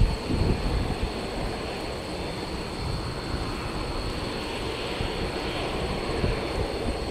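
Steady distant rumble of a Boeing C-17A Globemaster III's four Pratt & Whitney F117 turbofans as it comes in on final approach, with a few low thumps in the first second.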